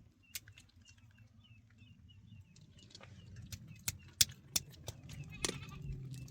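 Irregular sharp knocks and clicks, about seven of them, over a low steady rumble, with faint bird chirps in the first two seconds.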